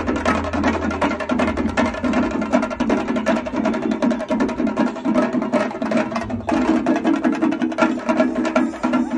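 Kerala chenda drum ensemble beaten with sticks in a fast, unbroken rhythm, with small hand cymbals clashing along.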